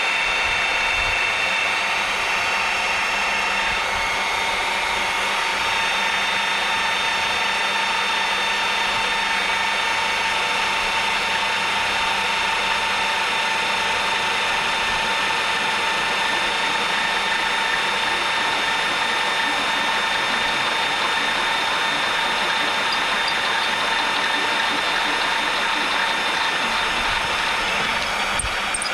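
Magnetic-base drill running steadily under load as a twist drill bit is hand-fed into a steel beam; the bit is one the operator calls poor quality.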